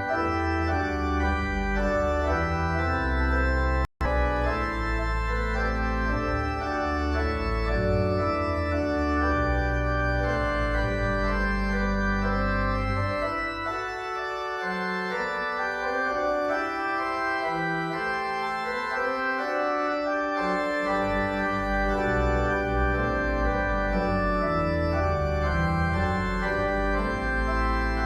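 Church organ playing slow, sustained chords over a deep pedal bass. The sound cuts out for an instant about four seconds in.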